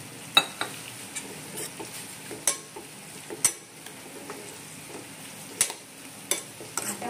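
A stainless-steel ladle stirring whole mung bean curry in a steel pan, clinking and scraping against the pan's sides about once a second or so, over a steady sizzle of the cooking food, with a little water just added.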